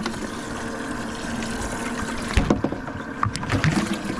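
Water running and splashing in a bass boat's open livewell, with a run of knocks and splashes from about halfway through as fish are handled in the well.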